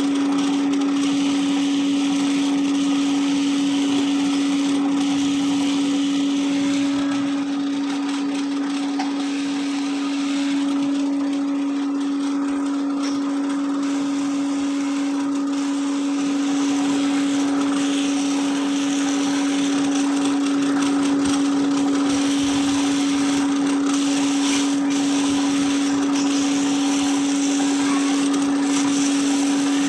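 Small 1 kg coffee roasting machine running: a steady motor hum with a constant rushing noise over it, unchanging throughout.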